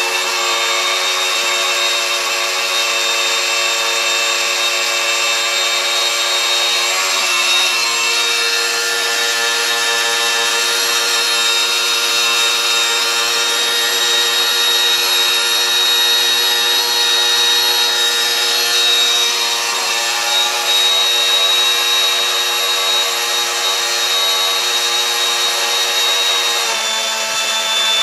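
Airfix working jet engine model kit's small electric motor running flat out on 9 volts, spinning the fan and turbine stages with a steady whir made of several tones. The pitch shifts slightly lower near the end.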